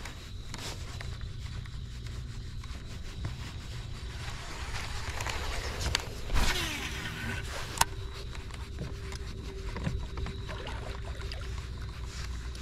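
Electric trolling motor on a bass boat humming steadily, with a few knocks and a sharp click about eight seconds in; a faint steady whine holds from about seven seconds on.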